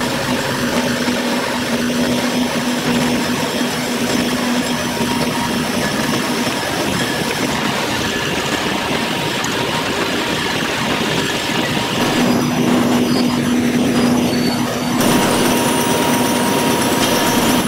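Softboard production-line machinery running: a loud, steady industrial din with a low hum that fades partway through and comes back. The sound shifts abruptly about twelve and fifteen seconds in.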